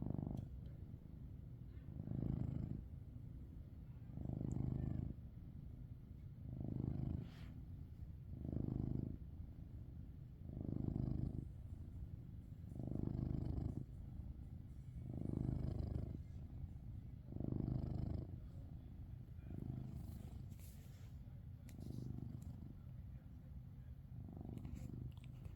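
A Maine Coon cat snoring: about a dozen slow breaths, one every two seconds or so, each a low swell, growing softer over the last few.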